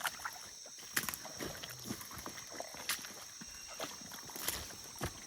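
Footsteps through brush and undergrowth: scattered crunches and snaps every second or two, over a steady high-pitched insect drone.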